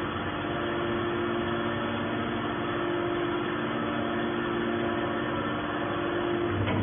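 Hydraulic metal scrap baler's power unit running at rest, its electric motor and hydraulic pump giving a steady hum. A short click comes near the end.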